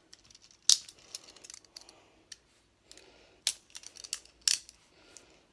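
Cheap metal handcuffs being worked by hand: sharp metal clicks, one strong click soon after the start and two more in the second half, with fainter ticks and rattles in between.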